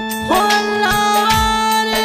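Instrumental interlude of a Marwari song. A held drone note runs under a lead melody line that comes in about a quarter second in and steps between notes, over a steady drum beat.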